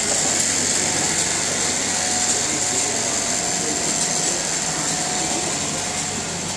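Steady, high-pitched hissing background noise of an indoor shopping centre, with a faint steady tone through the middle.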